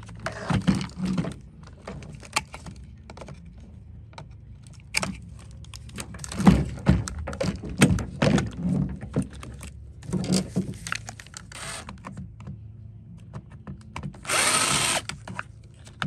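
A run of sharp cracks and clicks as plastic vacuum housing is cut with tin snips and parts are handled. About fourteen seconds in, a cordless drill runs for about a second driving a screw.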